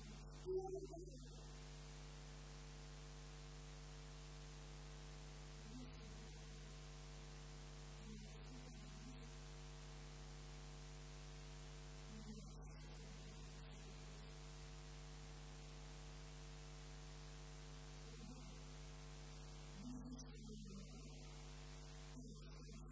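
Steady electrical mains hum, with a few faint, brief snatches of a woman's voice now and then.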